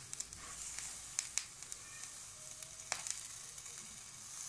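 Small meat skewers sizzling on an electric grill: a steady hiss with scattered crackles and a few sharp pops, the loudest about a second in and again near three seconds in.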